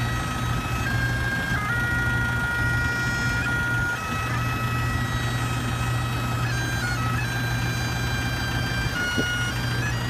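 Bagpipes playing a slow tune: held notes stepping up and down over a steady low drone.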